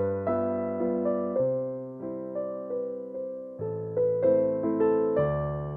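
Background piano music, a slow melody of notes struck and left to fade.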